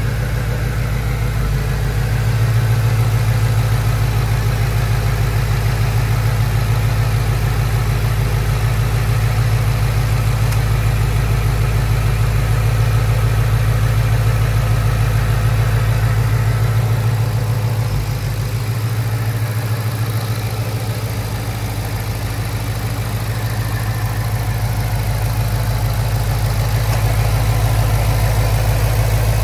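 A 2017 Shelby GT350R's 5.2-litre flat-plane-crank V8 idling steadily, with no revving, heard up close with the hood open.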